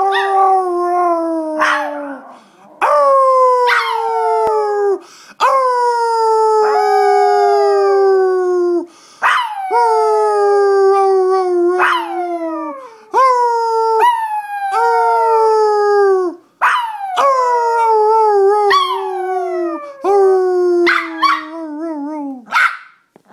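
A Maltese dog howling: a long run of drawn-out howls, each starting high and sliding down in pitch, with short breaks between them and a few shorter wavering cries near the end.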